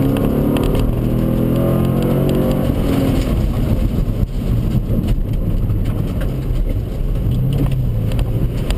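Ford Mustang GT's V8 engine heard from inside the car during a hard autocross run, its revs rising and falling as the driver works the throttle.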